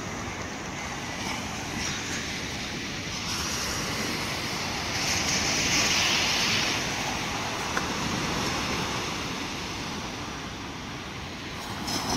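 Sea surf breaking and washing up a sandy shore, a steady rushing hiss that swells louder for a couple of seconds around the middle, with wind on the microphone.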